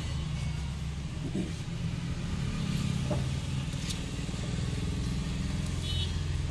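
Steady low hum of a running motor, with a few faint ticks.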